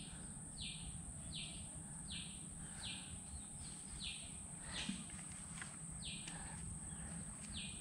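Riverbank wildlife ambience: a steady high-pitched insect drone, with a short high call repeated about every two-thirds of a second, over a low background rumble.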